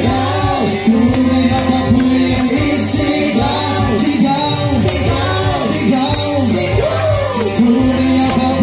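Tagalog praise-and-worship song playing loudly, with singing and tambourine jingles over a steady beat.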